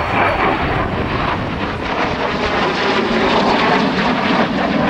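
Loud, steady jet noise from a SEPECAT Jaguar's twin Adour turbofan engines as the jet flies overhead.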